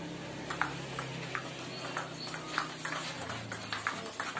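Table tennis rally: the ball clicking sharply off the bats and the table, about two or three clicks a second, with a steady murmur underneath.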